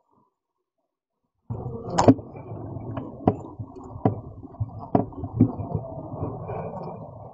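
Silence, then about a second and a half in, a honeybee colony's muffled hum and bustle from inside the hive starts abruptly, with half a dozen sharp clicks and knocks scattered through it.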